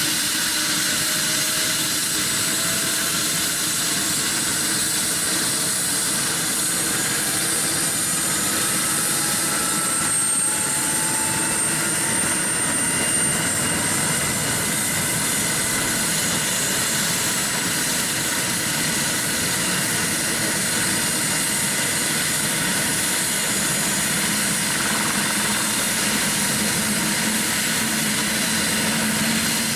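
Airbus H145 helicopter running on the ground with its twin turboshaft engines and main rotor turning: a steady turbine whine and rotor noise, with a few tones climbing in pitch over roughly the first dozen seconds as the engines spool up.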